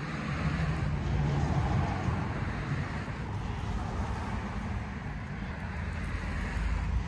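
Motor vehicle traffic: a low engine rumble with road noise that swells over the first couple of seconds, then holds steady.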